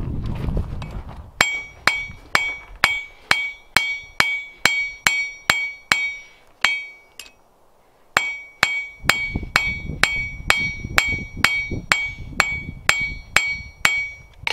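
Blacksmith's hand hammer striking hot steel bar stock on an anvil, about two blows a second, each with a clear metallic ring, as the round bar is forged square and tapered. The hammering stops for about a second midway, then resumes at the same pace.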